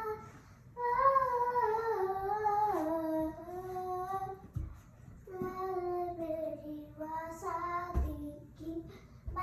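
A child singing alone without accompaniment: two phrases of long held notes that step downward in pitch, with short breath pauses between them.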